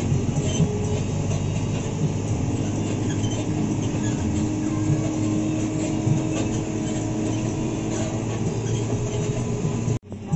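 Ride noise inside an Isuzu NQR medium bus under way: the diesel engine running, with steady road rumble and body rattles. The sound cuts off abruptly near the end.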